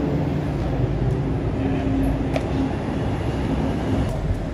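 Steady low rumble of city traffic, with a faint held hum through the middle and a small click or tap about two and a half seconds in.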